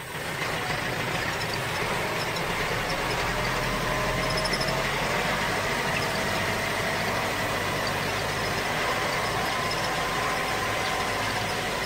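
Truck engine running steadily, coming in just at the start.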